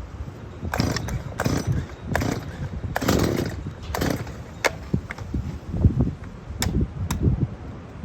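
Stihl MS 180 two-stroke chainsaw's recoil starter being yanked over and over in quick, uneven pulls, with rattles and sharp clicks; the engine does not catch.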